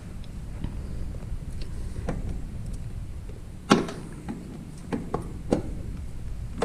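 Motorcycle flywheel being jiggled and twisted by hand onto the crankshaft and starter clutch, giving several sharp clicks and knocks over a low rumble of handling. The loudest knock comes about three and a half seconds in.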